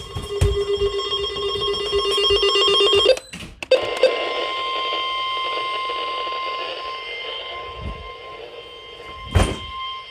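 Emergency Alert System broadcast tones: about three seconds of rapidly warbling data tones, then, after a short break, a long steady alert tone. There is a single knock near the end.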